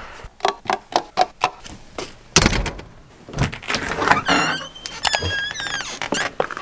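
Doors: a quick run of latch and handle clicks, a heavy door thud about two and a half seconds in, then a house door knob turned and the door opened. After that come several high, squeaky notes that fall in pitch.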